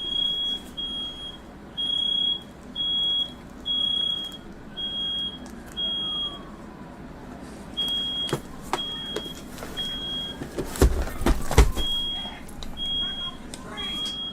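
Smoke alarm beeping a high, even beep about once a second, set off by firework smoke in the room; the beeps pause for a couple of seconds midway. Several sharp knocks and bangs come around two thirds of the way in, and a faint rising and falling wail runs underneath.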